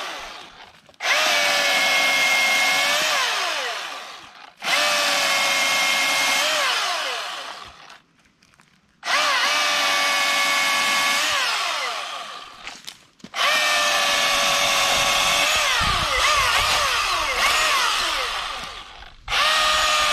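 Milwaukee M18 battery chainsaw cutting a small log into firewood rounds: an electric motor whine that comes on sharply, sags in pitch as the chain bites into the wood, then winds down when the trigger is let go. This happens five times, with short pauses between cuts and the last cut starting near the end.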